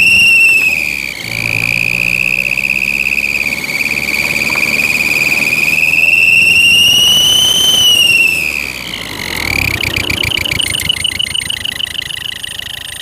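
Homemade turbo-sound exhaust whistle: a drink can with two metal caps on its end, clamped over a car's tailpipe, whistling in the exhaust flow over the engine's low hum. The high whistle rises and falls with engine speed like a turbo spooling, then drops about nine seconds in and turns into a rapid fluttering warble.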